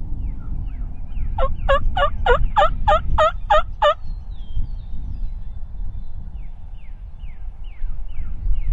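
Wild turkey calling: a run of about nine evenly spaced notes starting about a second and a half in and stopping a few seconds later.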